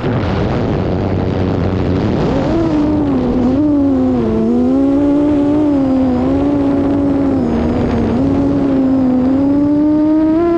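FPV quadcopter's motors whining, the pitch rising and falling with throttle. Right at the start the whine drops away steeply, leaving a rough low rumble for about two seconds; then the whine comes back at a lower pitch and wavers up and down.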